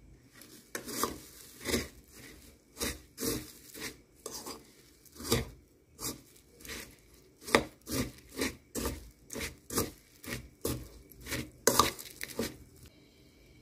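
Metal spoon stirring dry puffed rice, sev and chopped vegetables in a ceramic bowl: a run of irregular crunchy rustles and spoon scrapes, about one or two a second, stopping shortly before the end.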